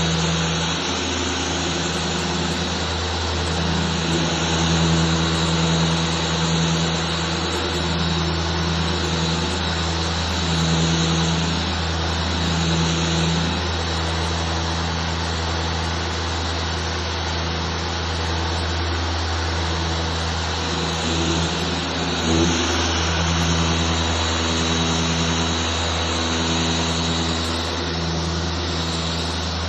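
A machine running steadily: a low hum with a hiss over it, and a higher tone that keeps cutting in and out.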